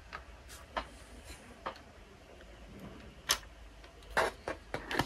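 Plastic building-block parts clicking and knocking as hands pull a cover panel off a brick-built turbofan engine model: scattered sharp clicks, the loudest a little past three seconds in, then a quick run of several near the end.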